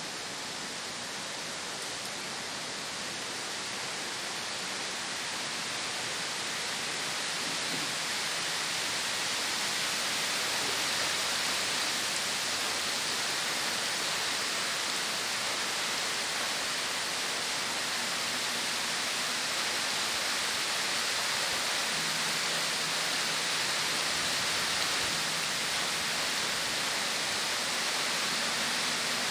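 Heavy rain pouring down steadily in a strong wind, growing a little louder over the first ten seconds or so.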